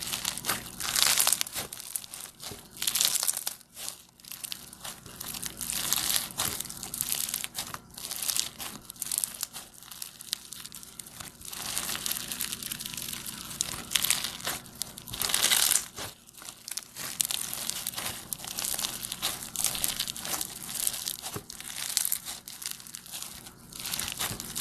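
Slime being squeezed and worked by hand, giving a run of irregular crackles that swell louder and fade again several times.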